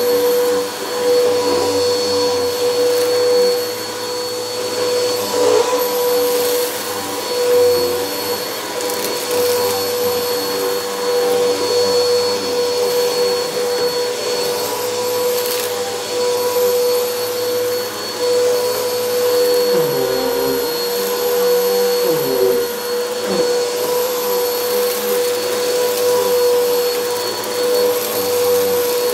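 Bissell PowerForce Helix Turbo upright vacuum cleaner running over low-pile carpet, its motor giving a steady high whine as it is pushed back and forth. The pitch wavers briefly a couple of times about two-thirds of the way through.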